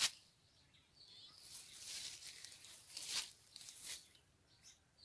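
Faint rustling and crackling noises, like foliage or dry leaves being brushed, with a sharp click at the start and a few soft crackles later.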